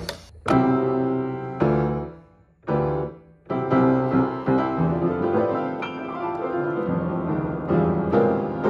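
Grand piano being played: four separate chords struck a second or so apart and left to ring down, then steady flowing playing of chords and melody.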